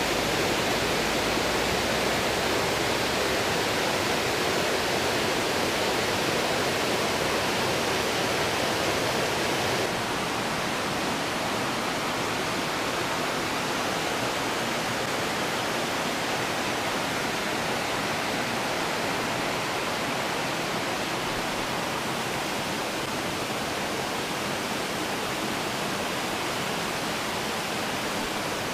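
A rocky brook rushing and splashing over ledges and small cascades, a steady even rush of water. About ten seconds in it becomes a little quieter.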